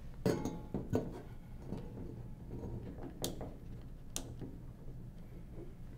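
A few light, sharp clicks and knocks of metal tube fittings and purge lines being handled and connected, over a faint steady low hum.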